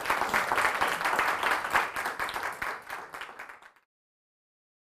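Audience applauding after a talk, with many hands clapping at once; the applause thins out and cuts off abruptly about four seconds in.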